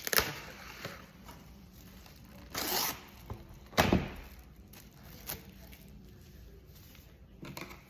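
Plastic cling film being pulled off its roll and torn, in a few short noisy bursts, the loudest about four seconds in.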